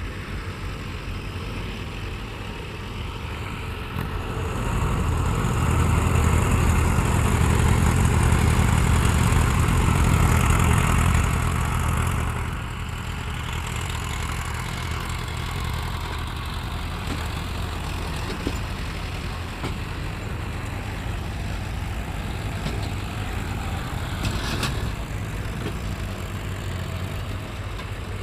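A heavy working machine's engine running steadily. It grows louder for several seconds from about four seconds in, then drops back to a steady run.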